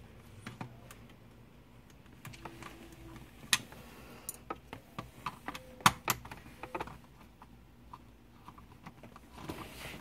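Irregular small clicks and taps of hand work with a Torx screwdriver on the screws of a convertible-top switch and its plastic console parts. The two loudest are sharp clicks about three and a half and six seconds in.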